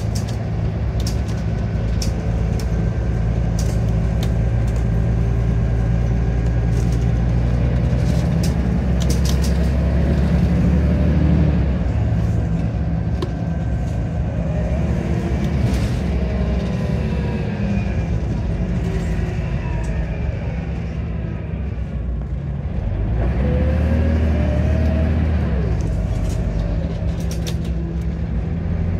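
Scania DC9 9.0-litre diesel engine and ZF Ecomat 5-speed automatic gearbox of a Scania N94UB Omnicity bus, heard from inside the cabin while under way, with a gearbox whine that rises and falls in pitch. About three-quarters through, the engine eases off briefly, then pulls again with a rising whine.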